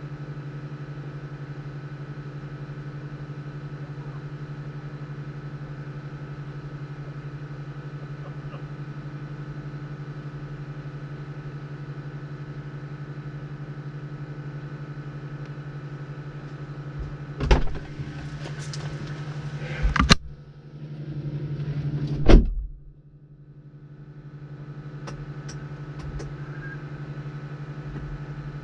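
Jeep engine idling steadily, with three sharp knocks in the last third, the last one the loudest.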